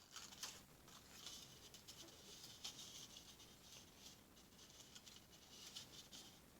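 Faint crackly rustling of paper being torn into strips by hand.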